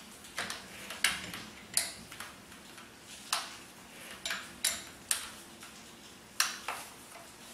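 Irregular sharp metal clicks and small taps from an electric drill's keyed chuck being hand-tightened on a wood drill bit and the chuck key being fitted into the chuck.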